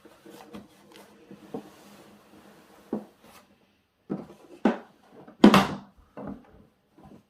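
Handling knocks and clunks from a Super7 Snake Mountain plastic toy playset being shifted around during assembly, with the loudest clunk a little past halfway.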